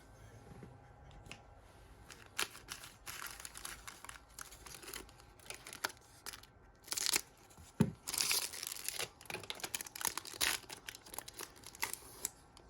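Crinkling and rustling of trading cards and their foil pack being handled, a run of sharp, uneven crackles that starts sparse and grows busier, loudest a little past the middle.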